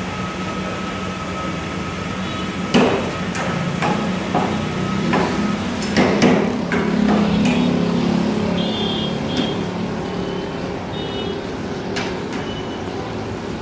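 Metal spatula clanking and scraping against a large steel pan of shawarma filling in a series of irregular knocks, loudest about three and six seconds in, over a steady low hum.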